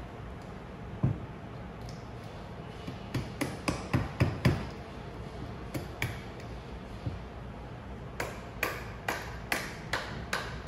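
Hammer tapping a small socket to drive the pilot spool assembly out of a plastic pump center block. A few scattered knocks come first, then a quicker run of sharper taps, about three a second, in the last few seconds.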